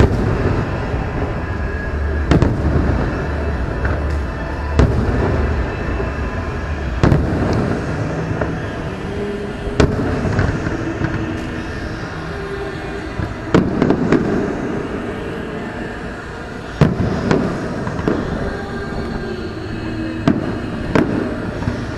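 Fireworks display: aerial shells bursting in a sustained barrage, with sharp bangs every two to three seconds over a continuous rumble and crackle.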